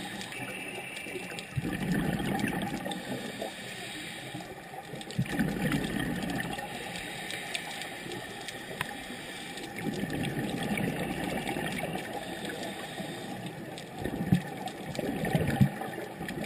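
Scuba exhalation bubbles heard underwater: a rushing bubbling sound swells about every four to five seconds over a steady underwater hiss.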